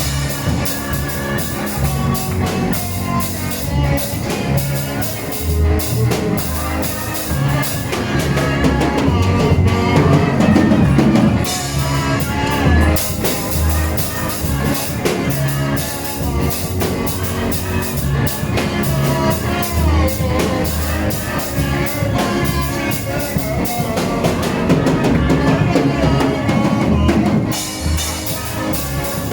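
Live band music with a drum kit keeping a steady beat over a deep, pulsing bass line.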